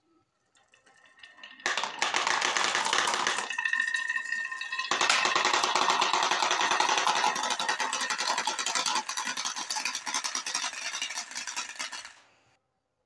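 Glass marbles streaming down a wooden wave-groove slope and clattering into a plastic toy dump truck's bed: a dense rattle of clicks that starts about a second and a half in, eases briefly, and stops near the end.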